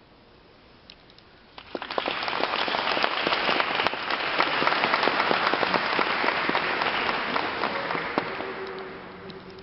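Audience applauding, starting abruptly about one and a half seconds in, holding steady, then dying away near the end.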